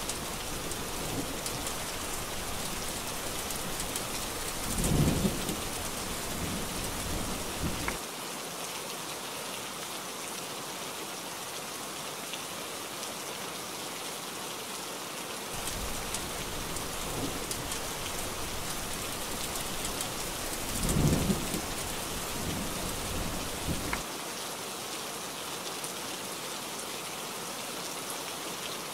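Heavy rain falling steadily, with two long rolls of thunder that swell to a loud peak about five seconds in and again about twenty-one seconds in.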